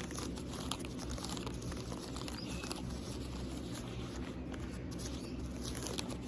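Fingernails scratching and tapping on a small bear-shaped object: a dense, even run of small scratchy clicks and rustles.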